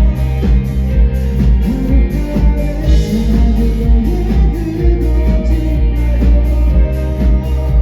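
Live rock band playing: guitar lines over a drum kit keeping a steady beat of about two hits a second, loud throughout.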